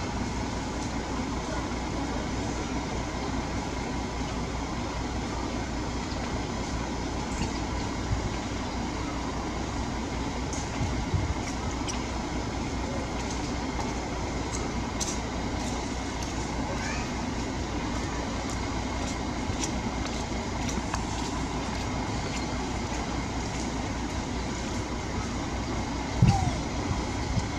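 Steady outdoor background rumble and hiss, with a faint steady hum. There are a few short knocks, the loudest near the end.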